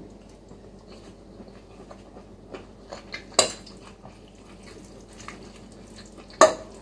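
Metal cutlery clinking against a ceramic bowl while eating noodles. Two sharp clinks stand out, one about halfway and a louder one near the end, with a few lighter taps just before the first.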